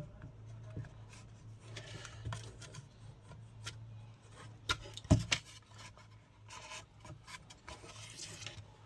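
Small clicks and rubbing from parts and tools being handled on a workbench, with one sharper tap about five seconds in. A low steady hum runs underneath.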